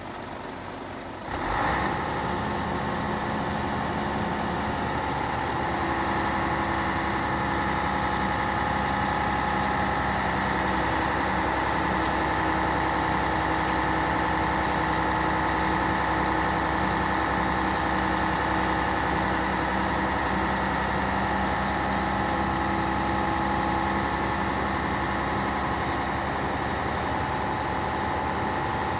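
Scania P113HL's six-cylinder diesel engine running at raised revs to drive the Bronto Skylift's hydraulics as the aerial boom moves, with a steady whine over the engine. The sound steps up suddenly about a second and a half in, then holds steady.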